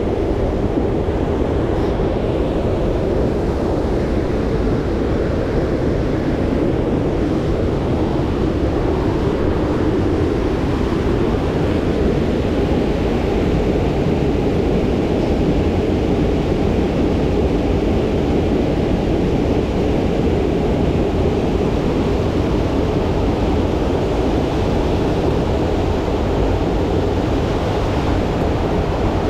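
Steady, even rush of flowing water inside a rock grotto.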